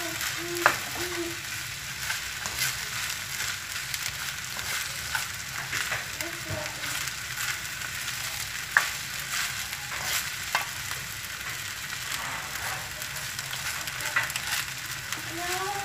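Fried rice with chicken and vegetables sizzling steadily in a frying pan while being stirred and tossed with a plastic spatula, with a few sharp knocks of the spatula against the pan.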